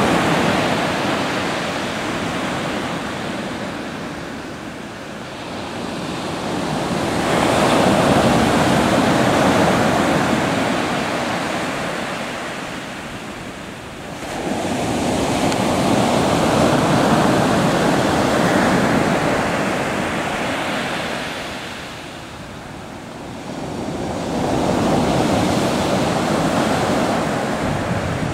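Pacific Ocean surf breaking and washing on the shore, swelling and ebbing with each wave, three big swells roughly eight seconds apart, with some wind on the microphone.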